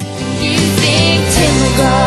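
Pop song playing loud with a full band, swelling up over the first half second.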